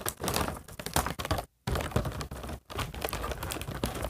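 Stiff clear plastic doll packaging being handled as the doll is worked out of its box: irregular crinkling with quick clicks and knocks of plastic.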